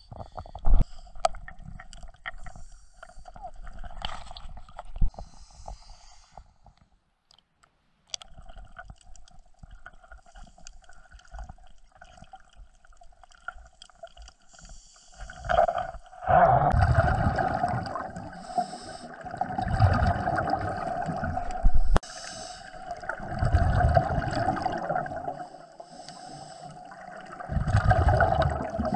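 Scuba regulator exhaust heard underwater: loud bubbling bursts every few seconds, one per exhaled breath, over a steady faint hum. Before the dive, a few knocks and clicks from handling gear.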